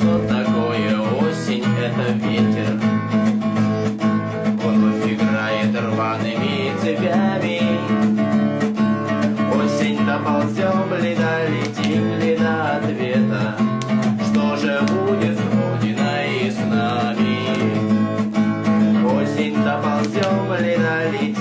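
Acoustic guitar strummed and picked, playing chords steadily without pause.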